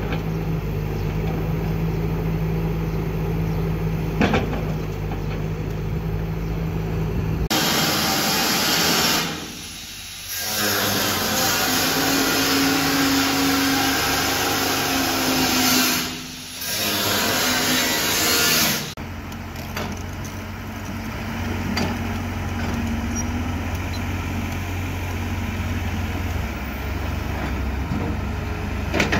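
A Kobelco excavator's diesel engine runs at a steady note. At about 7.5 s the sound cuts to an angle grinder cutting into a painted steel member, a loud, harsh grinding that dips briefly twice and stops about 19 s in. After that, excavator diesel engines run steadily while digging earth.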